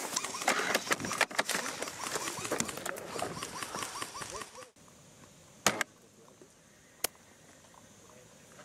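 Rustling and handling noise with many small clicks and a run of short chirps. Then a sudden drop to a quiet background broken by two sharp clicks about a second and a half apart.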